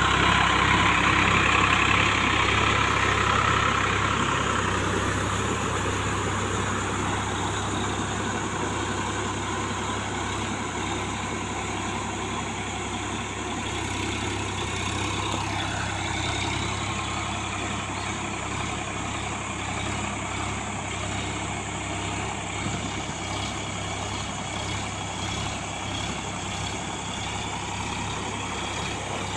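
Sonalika tractor's diesel engine running steadily while it works through a flooded paddy field on iron cage wheels. The sound is loudest at the start and fades over the first several seconds as the tractor moves away, then holds at a lower level.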